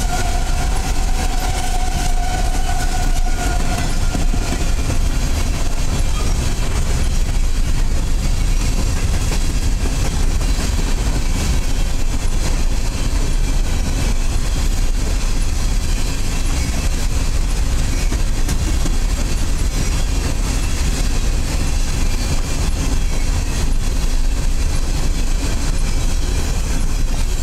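Steel coal hopper cars of a freight train rolling past, with steady wheel-and-rail noise and clickety-clack over the rail joints. A high steady tone sounds over it in the first few seconds and fades out.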